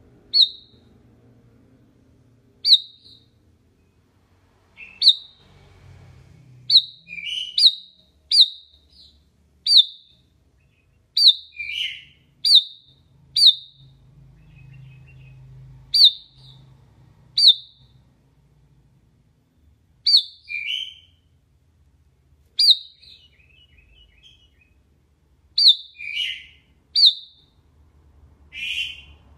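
Sooty-headed bulbul calling: short, sharp high notes repeated every second or two, some followed by a quick lower note.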